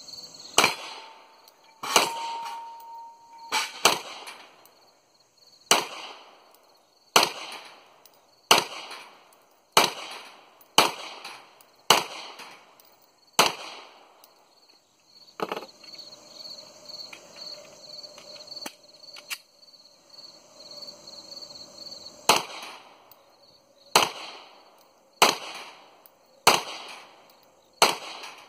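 Glock 26 9mm subcompact pistol firing about seventeen single shots at a steady, unhurried pace, roughly one every second or so, with a pause of several seconds in the middle. Hits on the steel targets clang, one ringing on briefly after an early shot.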